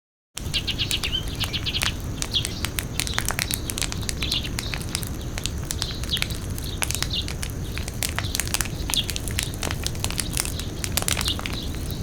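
Imitation campfire made by squeezing and crumpling plastic PET bottles: a steady low rumble with many sharp crackling clicks and short high chirping sounds over it, starting after a brief silence.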